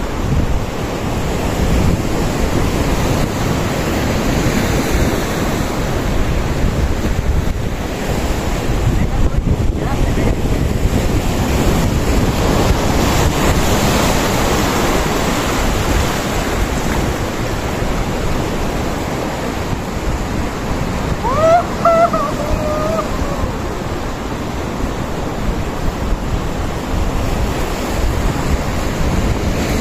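Ocean surf washing over a rocky shore, with wind buffeting the microphone. About two-thirds of the way through, a brief call, rising and then held, cuts through.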